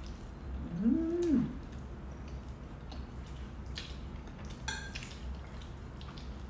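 Eating at the table: a short hummed "mmm" of enjoyment about a second in, rising, holding and falling in pitch. It is followed by a few light clicks of a fork against a plate, one with a brief ring.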